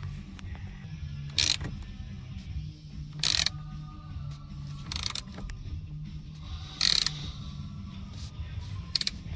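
Ratchet turning the forcing bolt of a two-jaw puller to press a steering wheel off its shaft: a short clicking stroke about every two seconds, five in all.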